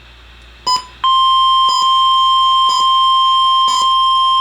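NOAA Weather Radio warning alarm tone: after a couple of short clicks, a single loud, steady tone near 1 kHz comes on about a second in and holds. It signals that a new warning broadcast is starting.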